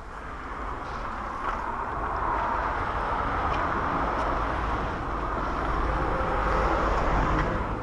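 Road traffic: a vehicle going by, its tyre and engine noise a steady hiss that slowly swells and eases off near the end.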